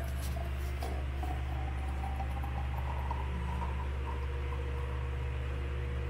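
Hot water poured from a stainless-steel kettle into a glass French press over ground coffee, the pouring note rising faintly as the press fills. A steady low hum runs underneath.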